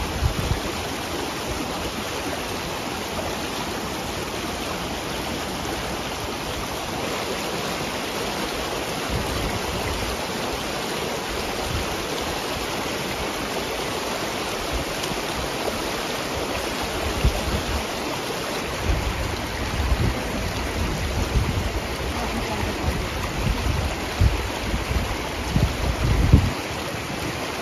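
Shallow river rushing over stones, a steady rush of water. In the second half, gusts of wind buffet the microphone with low rumbles.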